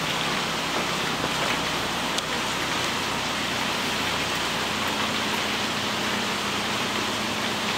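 Steady, even rushing noise like rain, with a faint low hum underneath.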